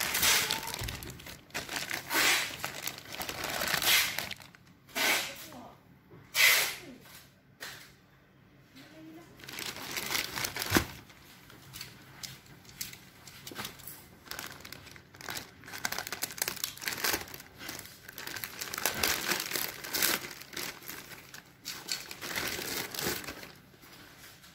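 Black plastic courier bag crinkling and rustling in irregular bursts as it is handled and pulled open, with a sharp snap about eleven seconds in.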